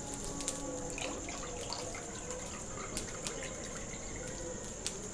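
Beaten egg-and-milk mixture pouring and dripping from a steel bowl into a kadai, with a few small scattered clicks, against a steady high chirring in the background.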